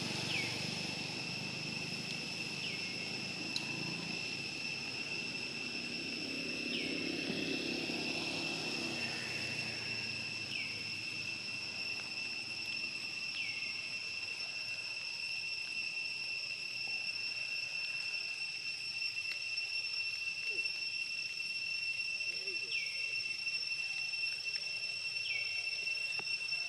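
Steady, high-pitched insect trill running unbroken through the forest air, with a short falling chirp every few seconds.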